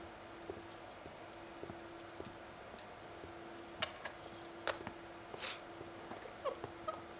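Soft footsteps and small clicks and rustles of a person moving through a room, with a chair pulled out and creaking briefly near the end. A faint steady hum runs underneath.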